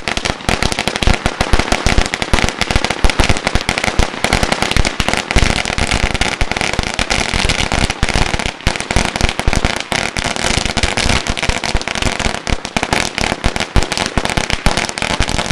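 A 16,294-count roll of celebration firecrackers going off in a continuous, rapid string of loud cracks with no break.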